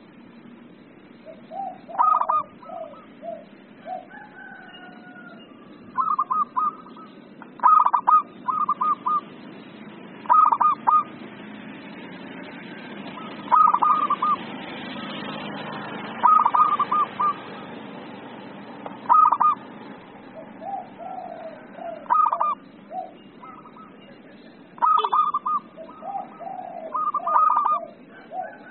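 Zebra dove (perkutut) singing: bursts of three to five quick, stuttering coos, repeated every two or three seconds, with fainter, lower notes between the bursts.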